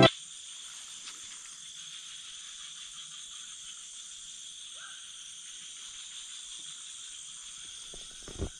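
Night chorus of insects: a steady, even high-pitched chirring. A couple of soft low knocks come near the end.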